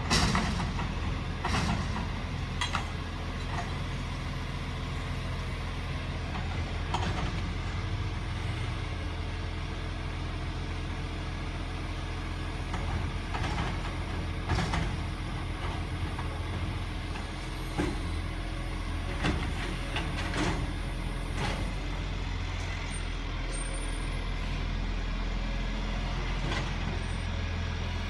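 Garbage truck's diesel engine running steadily at a distance, with sharp clanks and knocks from time to time as it works through the kerbside bins, the loudest right at the start.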